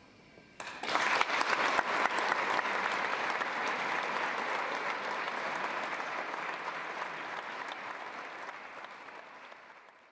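Audience applauding: the clapping breaks out suddenly under a second in, holds thick and steady, then slowly fades out near the end.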